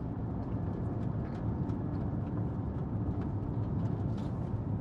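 Steady rumble of a car being driven, heard from inside the cabin: engine and tyre noise.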